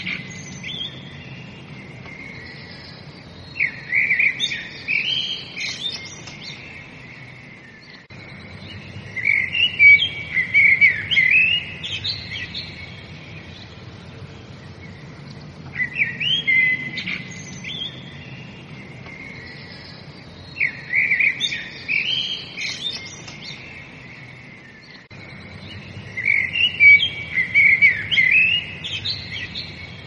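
Small songbirds chirping in bouts of quick, busy calls a few seconds long, with quieter gaps of steady background noise between them. The same stretch of chirping seems to repeat about every 17 seconds, as a looped recording would.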